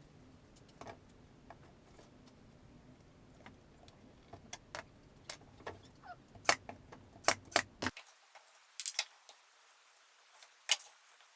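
Irregular light clicks and taps, sparse at first and more frequent from about four seconds in.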